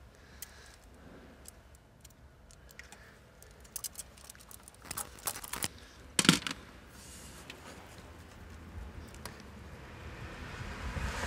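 Light metallic clicks and jingles of a metal hose clamp being handled and worked around a silicone intake hose, with a burst of sharper clicks about five to six seconds in. A low rustling builds near the end.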